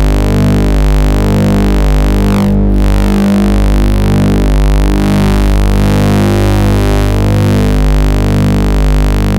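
Loud, buzzy synthesizer-like electronic tones, sustained notes changing pitch every half second or so. This is the computer sound card's audio signal, the same signal that draws the oscilloscope squiggles on the picture.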